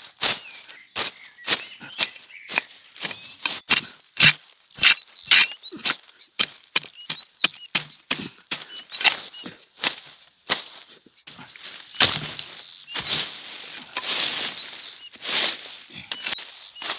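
A rapid, irregular series of sharp cracks and knocks, like dry material being broken or struck, with small birds chirping.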